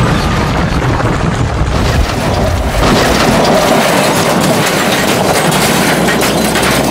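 Train running at speed past the listener: a loud, continuous rushing rattle of wheels and carriages, its tone shifting a little about three seconds in.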